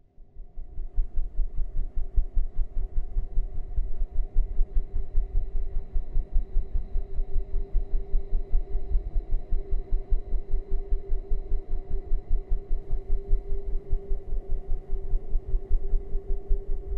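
Ceiling fan running: a steady hum with a fast low throbbing pulse, about four or five beats a second, fading in over the first second.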